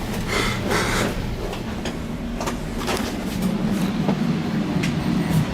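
Metra commuter train running, heard from on board: a steady low rumble that grows louder past the middle, with a scatter of sharp clicks from the wheels and car.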